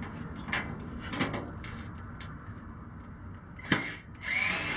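Cordless drill/driver driving a screw through the catalytic converter shield into the car's frame rail. A few light clicks and taps of handling come first, then near the end the driver's motor runs with a whine that rises and falls.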